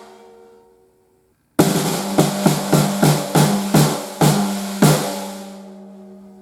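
Snare drum fitted with a single-ply coated batter head, struck about a dozen times in a quick run after a short pause, with the snare wires buzzing and the drum ringing out afterwards.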